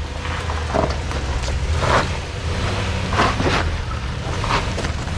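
Toyota Sequoia's V8 engine running low and steady at crawling speed, with short crunching swells about once a second as the tyres climb over loose rock.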